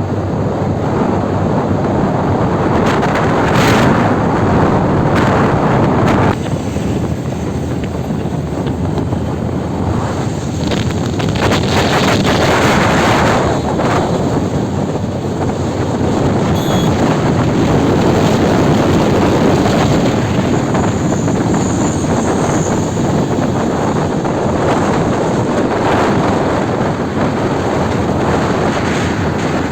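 Wind rushing over the microphone of a motorcycle in motion, a loud steady rush mixed with road and engine noise, a little quieter from about six seconds in.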